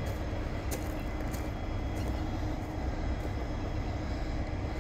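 Diesel freight locomotive running, a steady low engine rumble with a constant hum over it.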